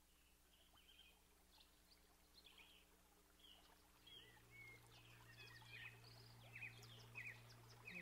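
Faint birdsong: many short, quick chirps that grow louder and busier, with a low steady hum coming in about halfway through.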